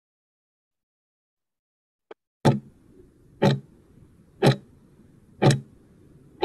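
Countdown timer's clock-tick sound effect: sharp ticks, one each second, beginning about two and a half seconds in, over a faint low hum.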